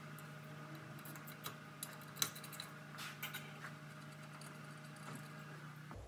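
Faint metallic clinks and clicks of hand tools working on a car's rear brake caliper, scattered and irregular over the first few seconds, over a steady low hum.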